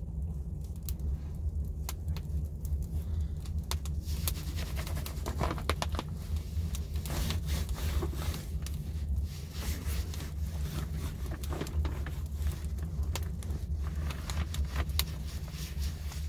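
Hands rubbing and wiping a plastic oilcloth tablecloth, with light scrapes and crackles scattered throughout, over a steady low rumble.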